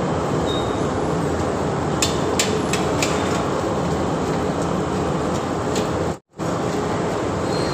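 Poori deep-frying in a kadai of hot oil: steady sizzling, with a few light clicks of the metal slotted spoon against the pan about two to three seconds in. The sound cuts out for a moment about six seconds in.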